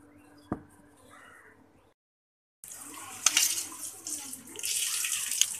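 Metal spoon scooping soft pressure-cooked tomatoes out of their juice in a stainless steel bowl: wet sloshing and squelching, with sharp clinks of the spoon against the bowl. These start after a brief cut to silence about two seconds in; before that there is only faint room tone and a single click.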